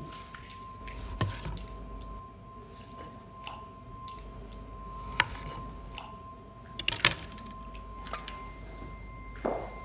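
Kitchen knife cutting through a lime on a glass countertop, with a few sharp clicks of the blade against the glass, over a steady held tone. A brief falling swoosh near the end.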